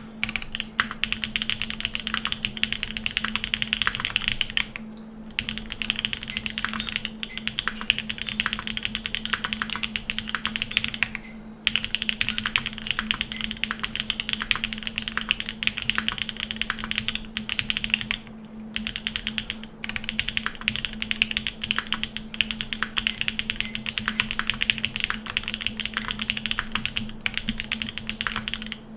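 Fast, continuous typing on a 7V custom mechanical keyboard with lubed Jade Black switches in a polycarbonate plate. The key strokes run in quick runs, broken by short pauses three times.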